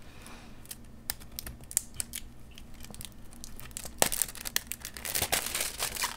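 Mail-order packaging being opened by hand: scattered clicks and rustles, then from about four seconds in a sharp snap and a denser stretch of crinkling and tearing.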